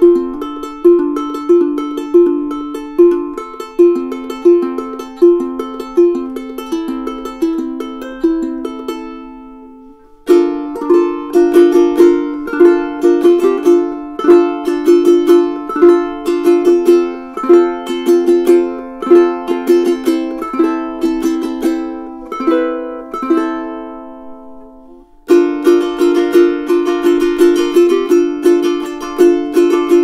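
All-solid mahogany Uma concert ukulele played alone, a repeated picked pattern of ringing notes. Each passage fades out, and a new one starts abruptly about ten seconds in and again about twenty-five seconds in.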